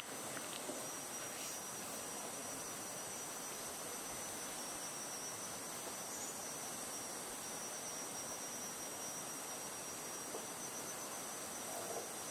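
Outdoor insects, such as crickets, keeping up a continuous high, steady trilling over an even background hiss.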